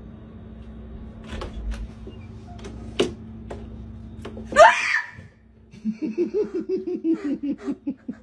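A few sharp clicks and knocks, then a loud, short shriek that sweeps up in pitch about four and a half seconds in. A second later a girl breaks into laughter in quick, even bursts that run to the end.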